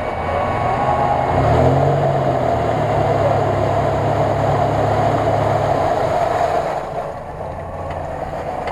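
Mitsubishi Pajero Sport's engine revving under load as it pushes through a deep mud-and-water rut, tyres churning the muddy water. The revs step up about a second and a half in, hold, then fall away after about six seconds.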